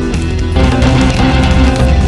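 Background music: a loud rock track with guitar and drums.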